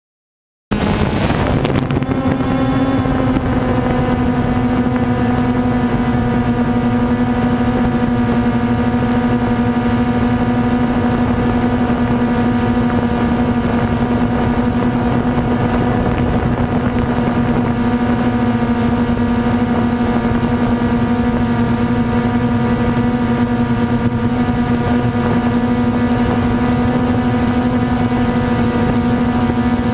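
DJI Phantom 2 quadcopter's motors and propellers heard through the camera on board: a loud, steady hum with a clear pitch over a rush of air. It starts suddenly just under a second in and settles slightly lower over the next couple of seconds.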